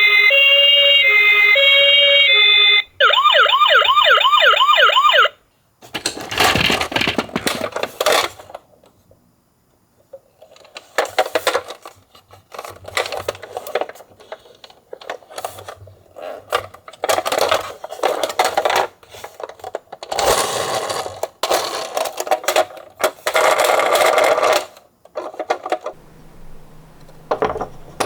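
Toy ambulance's electronic siren: a hi-lo two-tone for about three seconds, then a fast repeating rising wail that cuts off suddenly about five seconds in. After a short pause come irregular bursts of rattling and rolling noise from the toy vehicle and its plastic parts.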